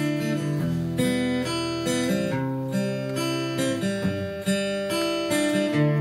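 Acoustic guitar played solo, strumming a chord progression with the chords changing every half second to a second.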